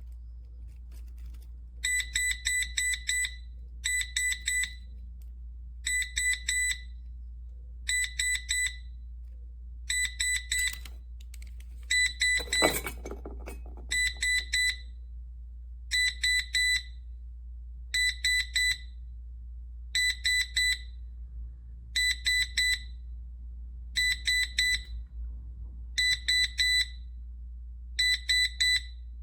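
Plug-in gas and carbon monoxide detector alarm going off, set off by butane gas from an opened lighter: loud, high-pitched beeps in quick groups of about four, repeating every two seconds, starting about two seconds in. A single sharp knock near the middle.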